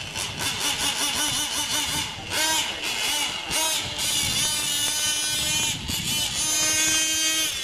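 Radio-controlled model motorcycle's motor running at high pitch, revving up and down: quick wavering rises and falls at first, then longer sweeps, and a steady held tone near the end.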